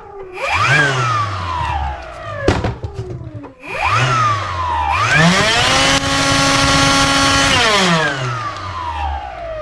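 Ryobi 18V cordless blower's electric motor and fan spinning up and winding down twice in short bursts, then running at a steady whine for about two and a half seconds before winding down. There is a sharp click between the first two bursts. The blower runs again now that its loose trigger-switch wire has been reconnected.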